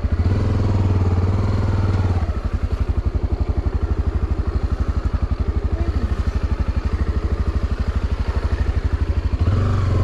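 Motorcycle engine running with an even, rapid putter, louder and busier in the first two seconds and again near the end as it picks up.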